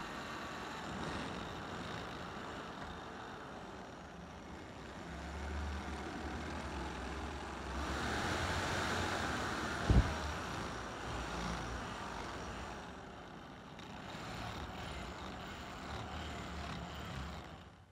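Drill press running as its bit bores holes through the steel tang of a knife blade, a steady mechanical sound that swells and fades as the bit cuts. One sharp knock about ten seconds in.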